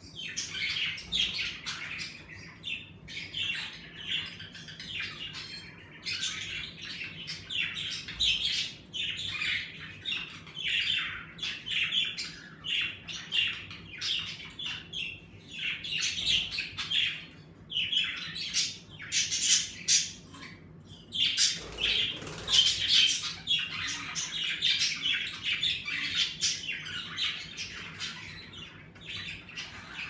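A flock of budgerigars chattering and chirping nonstop, a dense stream of quick, high, scratchy calls.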